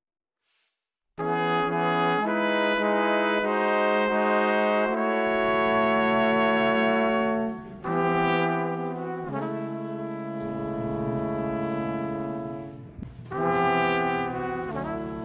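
Instrumental background music that starts suddenly about a second in, with long held notes and several changes of chord.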